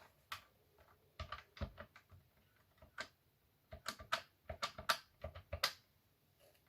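Phone keypad buttons being pressed to dial a number: a string of short, sharp clicks in irregular groups, with no dial tones heard.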